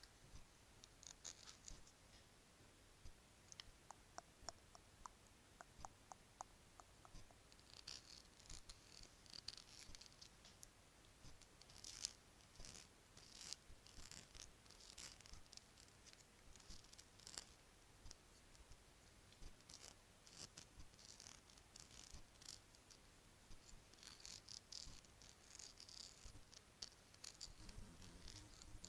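Bracelets jingling and clinking, quiet close-up handling with many light clicks and irregular clusters of small metallic tinkles.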